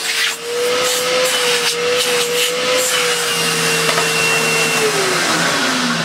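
Hoover Purepower U3456 Autosense upright vacuum cleaner running, a steady motor whine over the rush of air, with a thin high whistle for a while in the middle; the whine drops in pitch near the end. The freshly refurbished machine sounds okay.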